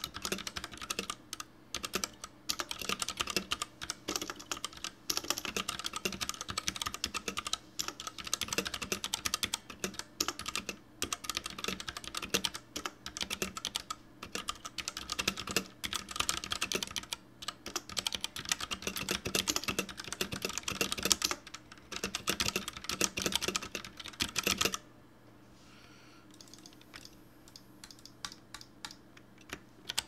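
Royal Kludge RK61 mechanical keyboard with its stock ABS shine-through keycaps being typed on fast, a dense run of key clicks and clacks. The typing stops about 25 seconds in, leaving only a faint steady hum.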